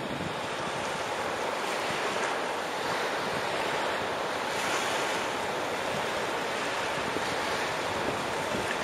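Gentle surf: small sea waves washing steadily onto a sandy beach, with wind rumbling on the microphone.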